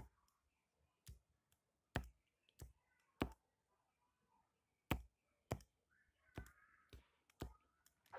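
Stylus tapping and clicking against a tablet's glass screen during handwriting: about a dozen sharp, irregularly spaced clicks over quiet room tone.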